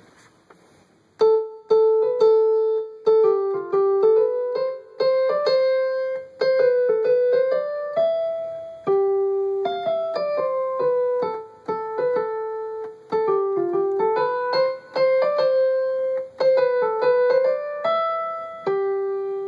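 Keyboard played with a piano sound by someone who has never had a lesson: a simple melody picked out mostly one note at a time in the middle register, starting about a second in.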